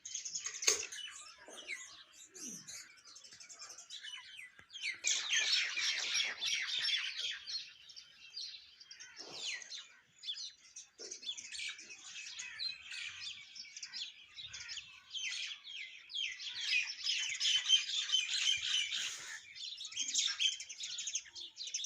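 Mynas and sparrows chirping in a busy chorus. The chorus swells into dense bursts about five seconds in and again near the end.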